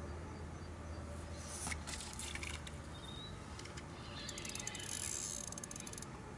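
Fishing reel clicking in two bursts of rapid ticks, about two seconds in and again from about four seconds, while a hooked carp is played close to the bank.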